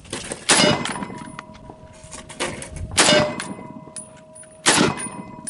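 Three .308 rifle shots, the second about two and a half seconds after the first and the third under two seconds later, each followed by the ringing clang of the bullet striking an AR500 steel armor plate, a tone that keeps ringing between shots.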